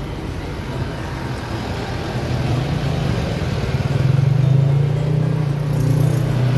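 Road traffic: a motor vehicle's engine drone that grows louder about four seconds in.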